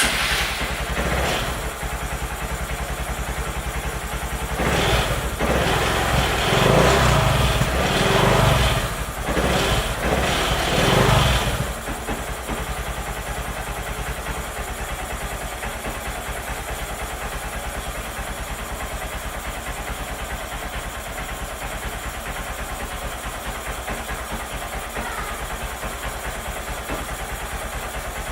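Honda single-cylinder fuel-injected motorcycle engine, just fired up on its first start. It is blipped up several times in a row about five to eleven seconds in, then settles into a steady idle.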